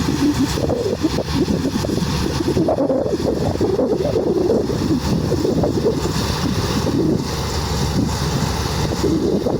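Mahindra Arjun Novo 605 tractor's diesel engine running steadily under load while working wheat, with wind buffeting the microphone.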